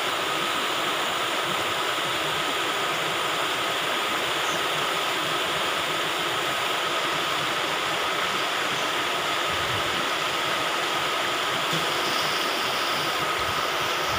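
Muddy floodwater rushing across a road, a steady, even rush of water.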